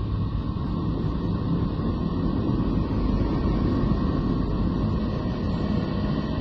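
Radio and electromagnetic emissions from Neptune, recorded by the Voyager 2 probe and converted into audible sound. They are heard as a steady, deep, rough drone without any pulse or melody.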